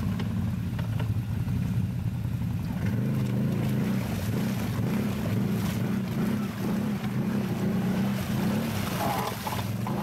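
Can-Am ATV engine held at high revs under heavy load while the wheels spin and churn through deep mud and water. The engine note strengthens about three seconds in.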